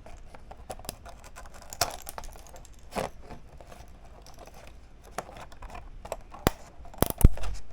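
A 3D-printed plastic model being pried and wiggled off the printer's build plate: scattered crackles, scrapes and clicks of plastic, with a few sharp snaps near the end as it comes loose.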